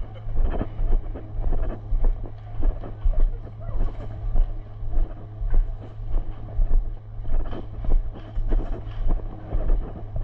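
Footsteps crunching on gravel at an even walking pace, about one and a half steps a second, with wind rumbling on the microphone.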